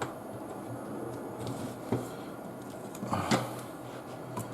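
A few clicks and knocks of bench equipment being handled and connected, one sharp click about two seconds in and a louder knock a little after three seconds, over a steady background whir.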